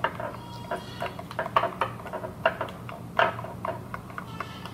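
A spoon stirring a thick, glittery glue slime mixture in a clear bowl, making irregular clicks and scrapes against the bowl's side.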